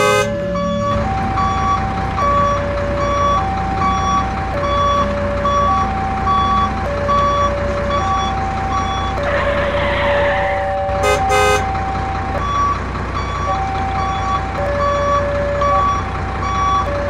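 Railway level-crossing warning signal: an electronic alarm alternating between two tones about once a second, with a short higher beep repeating about twice a second. A brief rushing noise comes about halfway through.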